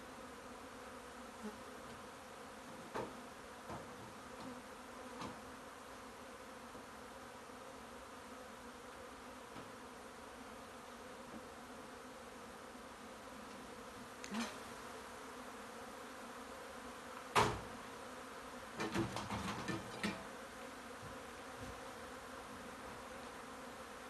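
Swarm of honey bees buzzing steadily, a hum of several even tones. A few sharp knocks sound over it, the loudest about 17 seconds in, followed by a short run of clattering.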